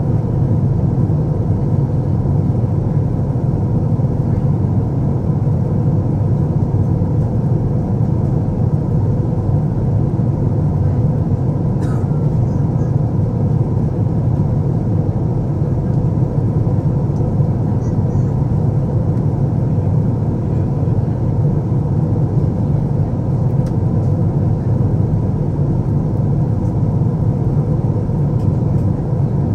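Steady cabin noise inside an Airbus A350-900 in flight: a low roar of airflow and its Rolls-Royce Trent XWB engines, with a faint click about twelve seconds in.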